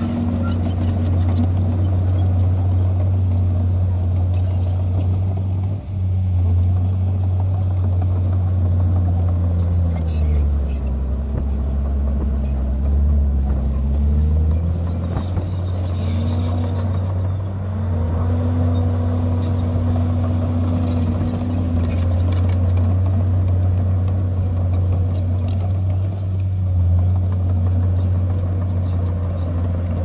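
Komatsu D51PX bulldozer's diesel engine running steadily under load as the crawler pushes soil. Its pitch dips about ten seconds in and comes back up about five seconds later.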